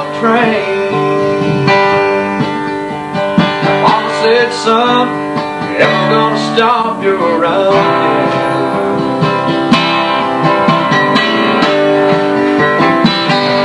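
Steel-string acoustic guitar strummed and picked, with a man singing a country tune over it in the first half; the guitar carries on alone later.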